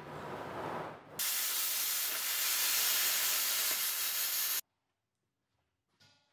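Plasma cutter cutting a sheet of diamond plate: a steady hiss that starts about a second in and stops abruptly.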